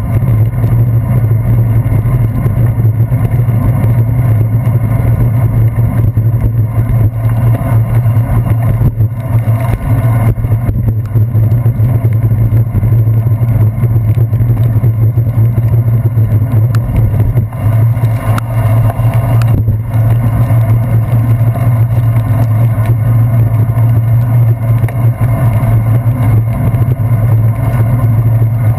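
Steady loud low rumble of a bicycle riding over wet pavement, heard through a handlebar-mounted GoPro Hero 2's sealed housing as road vibration and wind noise, easing briefly a couple of times.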